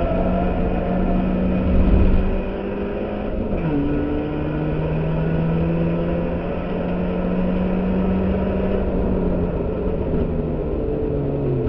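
Ford Fiesta race car's engine running hard under load, heard from inside the stripped cabin over road noise. Its pitch drops sharply about three and a half seconds in as it shifts up, then climbs slowly and falls again near the end.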